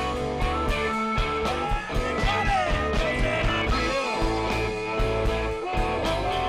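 Live rock band playing a blues number: electric guitars over bass and drums, with a melodic line bending in pitch around the middle.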